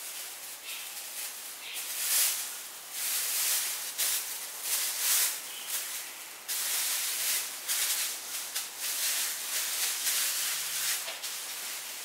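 A thin plastic food bag crinkling and rustling in irregular bursts as a ball of dough is put into it and the bag is gathered around it.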